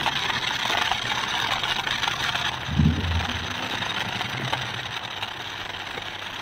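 Battery-powered toy RC stunt car driving over gritty ground: its small electric motors and plastic gearboxes whir steadily under the crunch of the wheels. A brief louder low sound comes about three seconds in.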